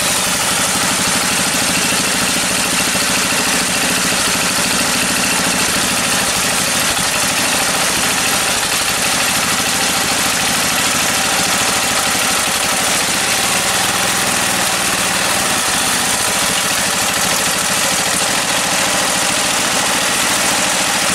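Small stationary petrol engine running steadily at a constant speed. Its flywheel sits slightly off square on a makeshift aluminium key and is hitting the guard as it spins.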